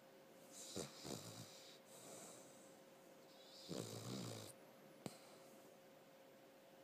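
Snoring: two snores about three seconds apart, with a single sharp click about five seconds in and a faint steady hum underneath.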